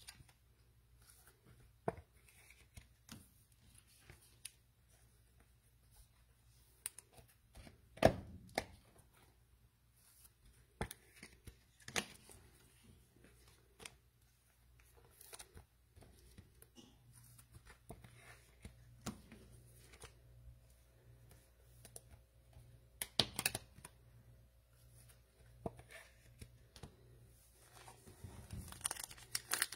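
Trading cards and their packaging being handled: scattered faint clicks and taps, the loudest about 8 and 23 seconds in. Near the end a plastic cello pack wrapper starts crinkling as it is torn open.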